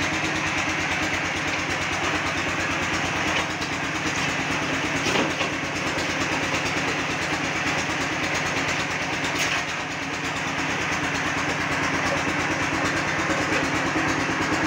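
Concrete-block making machinery running steadily off-screen: a motor drone with a fast, even pulse.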